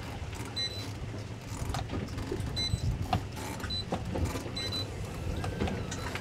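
Boat engine idling at dead-slow speed, a steady low hum, with scattered light knocks and a few short high-pitched chirps over it.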